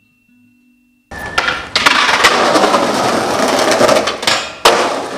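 Skateboard rolling loudly over concrete after a brief silence, with sharp clacks of the board. The sharpest clack, near the end, is the board landing a trick.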